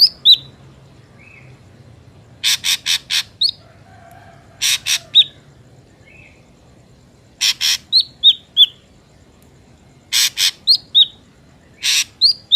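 Drongo calling: repeated groups of four or five harsh, rasping notes, each group followed by two or three short clear whistles, the pattern coming back every two to three seconds.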